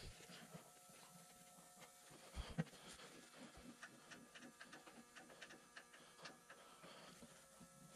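Near silence with faint scattered clicks and a couple of soft knocks about two and a half seconds in.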